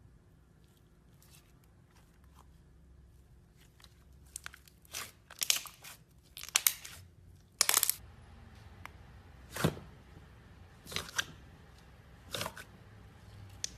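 Slime being squeezed and stretched by hand, making sticky pops and crackles: a few faint clicks at first, then louder irregular pops from about four seconds in, densest in the middle, then a few separate pops.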